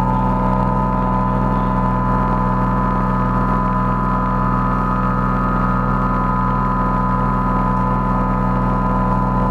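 Live electronic drone from synthesizers: a loud, dense chord of sustained tones over a low hum, holding steady without a break, with a faint regular flutter in the middle of the sound.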